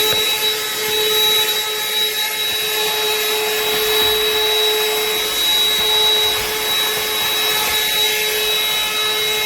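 BLACK+DECKER 20-volt cordless dustbuster handheld vacuum running steadily while vacuuming debris. A constant motor whine sits over a loud rush of air.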